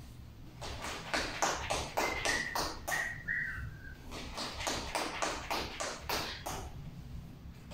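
Sneakers tapping rapidly on a tiled floor as a person runs fast feet in place, about four quick footfalls a second, starting about half a second in. A few brief high squeaks about two to three seconds in.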